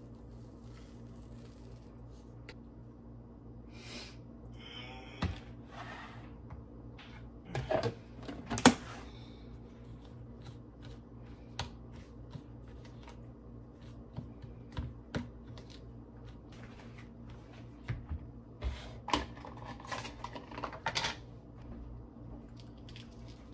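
Kitchen counter handling sounds: scattered clicks, taps and knocks of plastic containers, lids and a glass jar set down on a wooden cutting board, over a steady low hum. The loudest knocks come about a third of the way in and in a cluster near the three-quarter mark.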